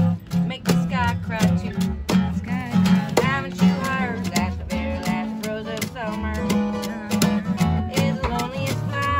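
Two acoustic guitars strummed together in a steady rhythm, with a woman singing over them.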